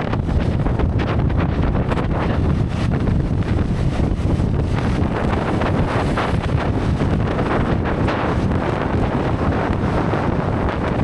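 Wind buffeting the microphone: a steady, loud low rumble with constant small gusts.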